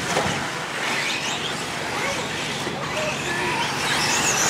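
Radio-controlled 1/10 short course trucks racing on a dirt track: the high whine of their electric motors rising and falling as they accelerate and slow.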